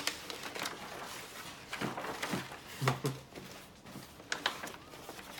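Gift-wrapping paper rustling and crackling as a sheet is unrolled and smoothed flat on a table, uneven, with a few sharper crinkles about two and three seconds in.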